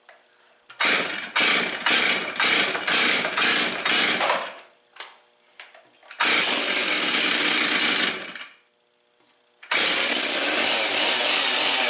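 Freshly rebuilt Stihl 036 two-stroke chainsaw engine being started: a string of short bursts about every half second, then it runs for about two seconds and stops. About ten seconds in it starts again and runs steadily.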